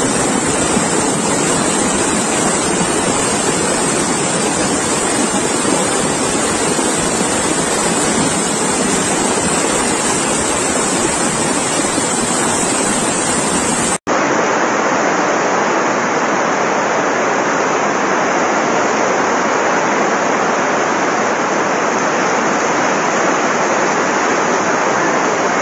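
Muddy floodwater rushing down a steep street: a loud, steady rush of water. It breaks off for an instant about halfway through, then a similar steady rush of floodwater goes on.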